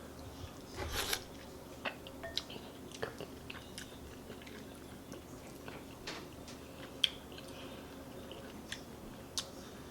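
Close-up mouth sounds of someone chewing and eating chicken noodle soup: scattered wet smacking clicks, a cluster about a second in, and one sharp click about seven seconds in.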